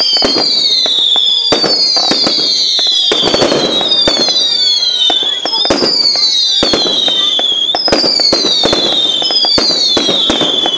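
Fireworks display: a quick series of whistling fireworks, each a loud falling whistle, about eight in a row, mixed with sharp pops and crackling bangs.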